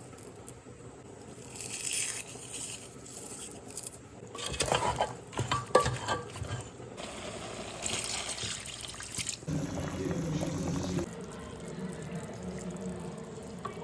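Kitchen sounds of liquid being poured and splashing in two bursts, with a stretch of clattering, like a utensil or pot being handled, in between.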